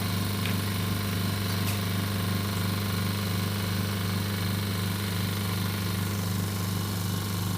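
Vacuum pump of an OCA vacuum laminator running steadily: a strong low hum with a rapid, even pulse. It is pumping the laminating chamber down during the vacuum extraction stage before lamination.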